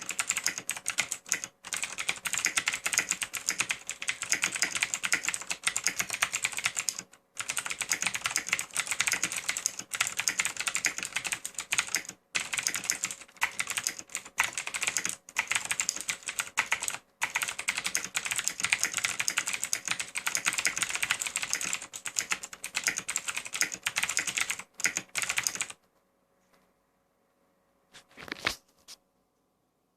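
Fast typing on a CM Storm Quickfire Ultimate mechanical keyboard with clicky Cherry MX Blue switches: a dense, rapid run of key clicks with brief pauses. It stops a few seconds before the end, apart from a short handful of clicks after that.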